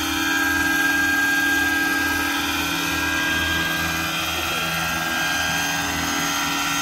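Radio-controlled scale Bell 429 model helicopter hovering low, its rotors and drivetrain running with a steady high whine over a low throb that waxes and wanes.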